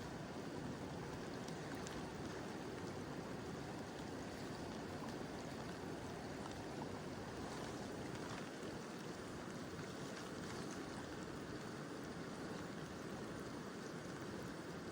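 Mountain river flowing steadily, a constant rush of water, with light rain falling in scattered faint ticks.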